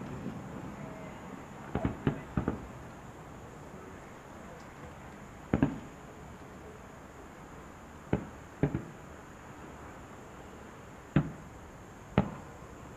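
Fireworks going off: about nine short, sharp bangs in scattered groups, a cluster of four about two seconds in, then a single bang, two pairs of bangs and a last single near the end.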